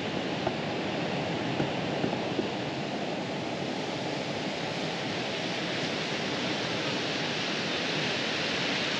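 Sea surf washing onto the beach, a steady, even rushing with a few faint ticks in the first couple of seconds.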